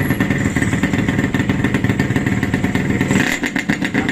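Yamaha RX-King's 135cc two-stroke single-cylinder engine running steadily after its rebuild, with a brief change in tone about three seconds in.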